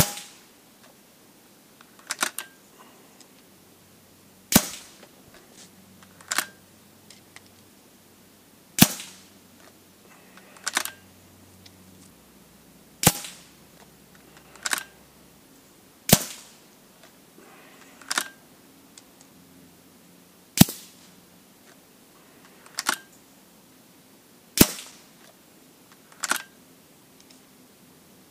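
Weihrauch HW100 sub-12 pre-charged pneumatic air rifle firing about seven shots, one roughly every four seconds. Each sharp crack is followed about two seconds later by a quieter click.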